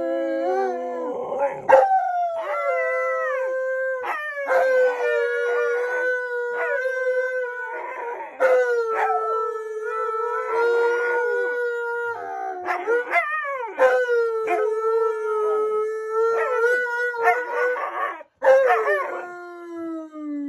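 Two large dogs, one an Alaskan malamute, howling together in long held notes that often overlap, with short breaks for breath; near the end one howl slides down in pitch.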